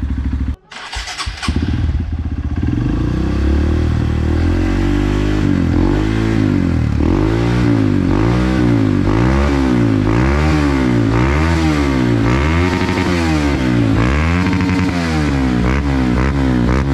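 Honda CRF150L's single-cylinder four-stroke engine running through a Perfect Power Titans aftermarket exhaust, revved again and again in short throttle blips about once a second, the pitch rising and falling each time. The sound drops out briefly about half a second in.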